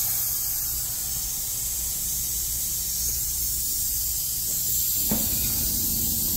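Pressure-test nitrogen hissing steadily out through the refrigeration manifold's hoses as the system is bled down before evacuation. A brief light knock sounds about five seconds in.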